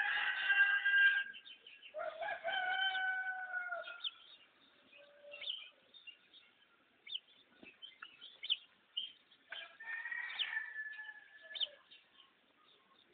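Rooster crowing three times: one crow at the start, another about two seconds in that drops in pitch at its end, and a third about ten seconds in. Small birds chirp briefly in between.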